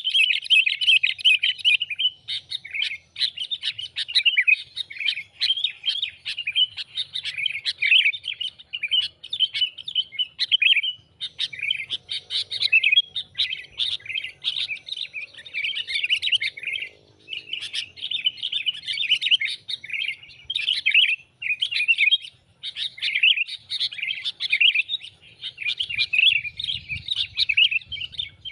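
Sooty-headed bulbul (kutilang) calling in a dense, continuous chatter of rapid chirps, broken by a few short pauses. This is a lure call played to draw wild bulbuls in for trapping.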